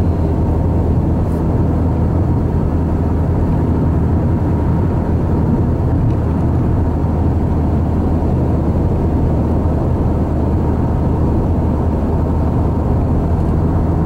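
Steady low engine and tyre noise of a car driving at highway speed, heard from inside the cabin.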